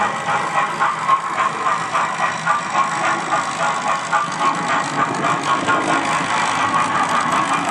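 OO-gauge model train running along the track and drawing closer: a steady mechanical clatter with an even beat of about three a second.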